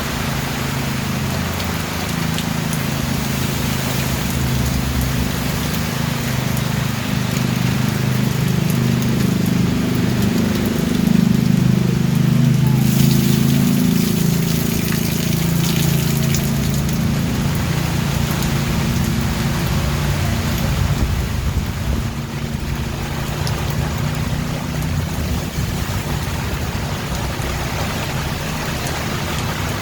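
Steady rain falling, with a deep rumble underneath that swells between about ten and fifteen seconds in.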